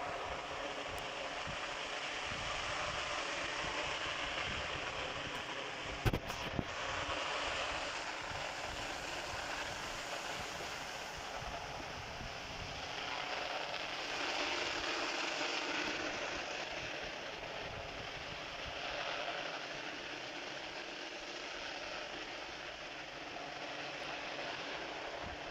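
Fireworks going off, with one sharp bang about six seconds in over a steady rushing noise that swells and fades.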